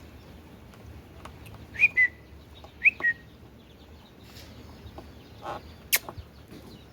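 Indian ringneck parrot giving two short whistles about a second apart, each a quick upward note dropping into a brief lower one. A single sharp click comes near the end.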